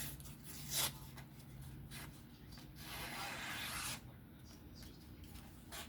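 Knife edge being stroked across a fine hone: a few short rubbing strokes, then one longer rasping stroke about three seconds in.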